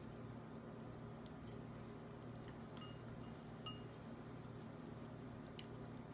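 A cat eating wet pâté cat food from a bowl: faint scattered wet clicks and smacks over a steady low hum.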